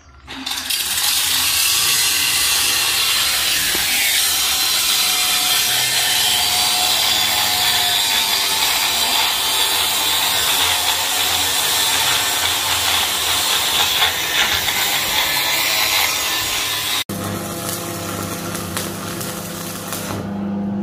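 Angle grinder running against a steel window grill, a loud, steady, high grinding whine. About 17 seconds in it cuts off abruptly and gives way to the crackle of stick arc welding over a steady low hum.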